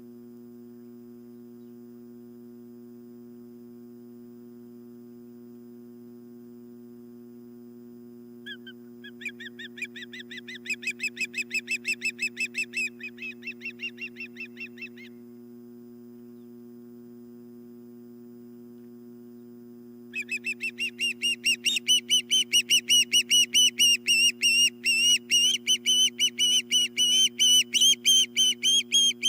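Osprey calling in two bouts of rapid, repeated high whistled chirps, about five a second; the second bout, starting about two-thirds of the way in, is louder and keeps going. A steady low hum runs underneath.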